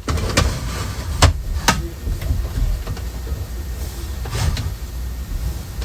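A steady low rumble with a few sharp clicks, two of them close together just over a second in.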